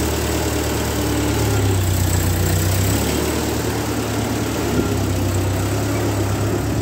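1948 Ford 8N tractor's four-cylinder flathead engine running steadily at low speed as the tractor pulls away.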